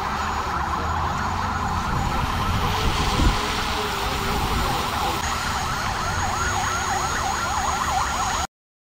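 Sirens on a convoy of pickup trucks with roof-mounted siren speakers, yelping in fast up-and-down sweeps of about four a second over a low rumble. A single thump about three seconds in, and the sound cuts off suddenly near the end.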